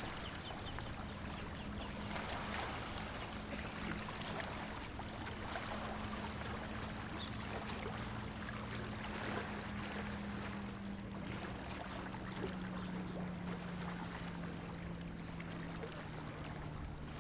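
A low engine hum that slowly drops in pitch, over a steady wash of outdoor noise with scattered faint clicks.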